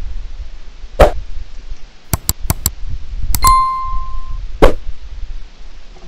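Subscribe-button animation sound effect: a swoosh, a run of quick mouse clicks, then two more clicks and a bell ding that rings for about a second, and a second swoosh near the end.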